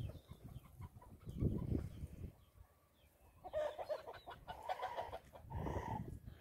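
Farmyard poultry calling: a run of repeated clucking calls from about halfway through. Low rumbling bursts come in the first half.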